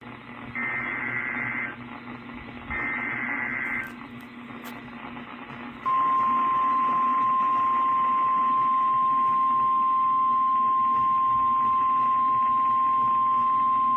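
NOAA Weather Radio Emergency Alert System transmission heard through a weather radio's speaker over steady static hiss. It opens with two buzzy bursts of about a second each of SAME digital header data, then about six seconds in the loud, steady single-pitch 1050 Hz warning alarm tone starts, here announcing a severe thunderstorm warning.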